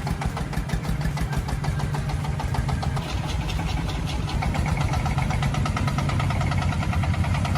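Engine of a homemade logging vehicle running with a rapid, even pulse, a little louder in the second half.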